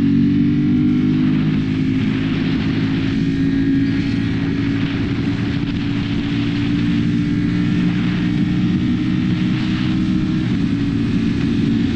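Ducati Panigale V4 sport bike's V4 engine running at a steady highway cruise, holding an even pitch, with wind rush over the bike heard from the rider's position.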